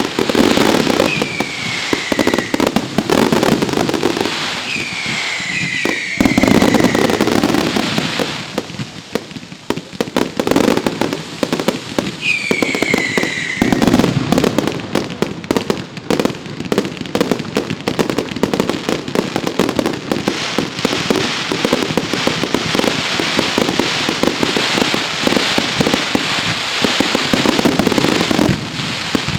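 Professional fireworks display: a dense, continuous barrage of shell bursts and crackling, with short whistles falling in pitch cutting through about a second in, twice around five seconds in, and again around twelve seconds in. The barrage eases briefly about a third of the way through, then builds back up.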